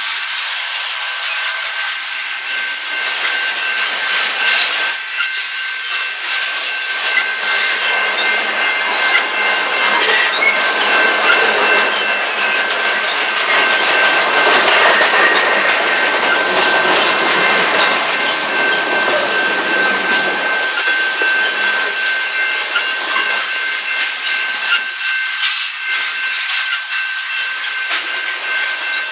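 Long freight train's cars rolling slowly past, steel wheels on rail with a steady high-pitched squeal and scattered clanks.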